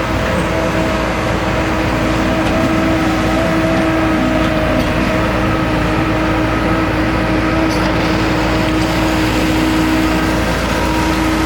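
Hyundai R130 Smart hydraulic crawler excavator running steadily, its engine and hydraulics making a constant rumble with a steady whine.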